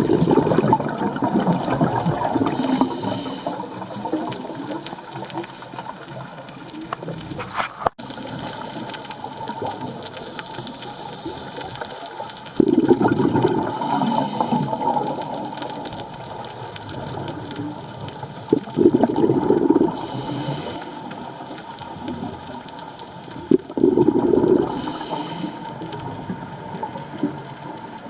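Scuba diver breathing through a regulator underwater: short hissing inhalations alternate with loud gurgling bursts of exhaled bubbles, about four breaths, over a steady underwater wash.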